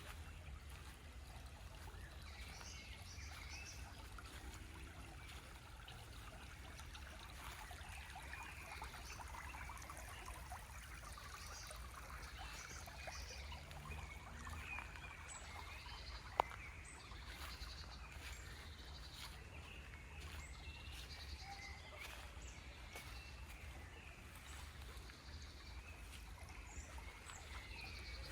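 Birds chirping and singing over a steady low rumble of outdoor background noise, with one sharp click about sixteen seconds in.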